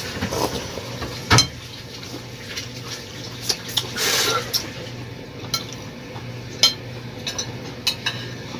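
Metal cutlery clinking and scraping on plates during a meal: scattered sharp clinks, the loudest about a second and a half in, and a brief scrape or swish around the middle, over a steady low hum.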